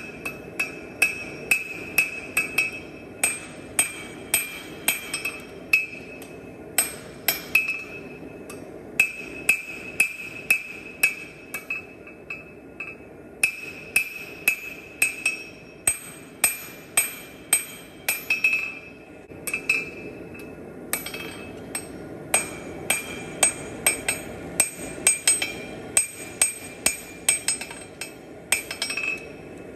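Blacksmith's hand hammer striking steel on an anvil while forging, in runs of about two to three blows a second broken by short pauses. The anvil rings after each blow.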